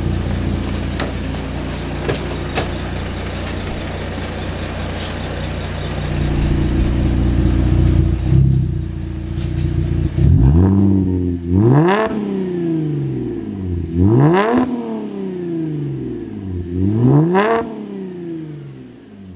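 Holden Commodore with an aftermarket exhaust idling. About ten seconds in, the throttle is blipped three times, and each rev rises in pitch and falls back to idle within a second or two.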